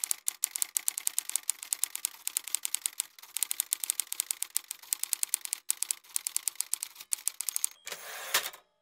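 Typewriter keystroke sound effect: rapid sharp clicks, about ten a second, with a few brief pauses, ending in a short rush of noise just before it cuts off.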